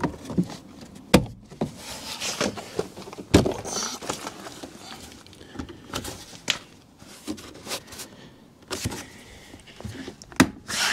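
Plastic car door trim panel being pressed onto a Toyota Aygo door: rustling handling noise with several sharp clicks and knocks as its trim clips snap into the door.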